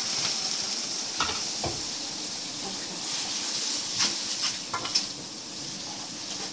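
Rice vermicelli stir-frying in a hot oiled pan: a steady sizzle, with a spatula scraping and knocking against the pan several times.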